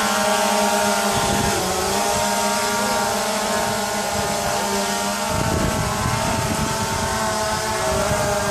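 DJI Phantom 2 quadcopter's electric motors and propellers buzzing steadily in flight, the pitch wavering slightly. Wind rumbles on the microphone about a second in and again from about five seconds in.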